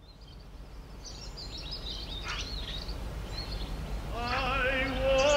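Birds chirping over a low, steady outdoor background that fades in. About four seconds in, a singing voice enters on a long held note with vibrato, growing louder.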